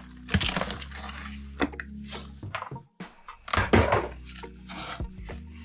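Cardboard shipping-box flaps being pulled open and folded back by hand: irregular scraping, rustling and light knocks of cardboard, with a crinkle of plastic wrap.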